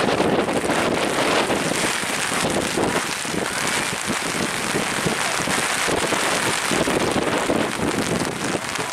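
Heavy rain falling steadily, with many separate drops striking close to the microphone.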